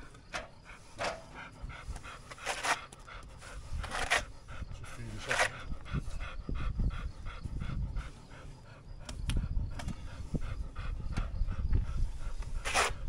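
A dog panting in quick, even breaths, about three to four a second, with a few louder short rushes of noise in between.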